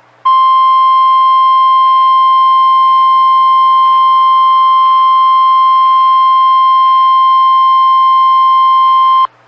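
NOAA Weather Radio 1050 Hz warning alarm tone sounding as part of the weekly test. It is one loud, steady, unbroken tone lasting about nine seconds and cutting off abruptly.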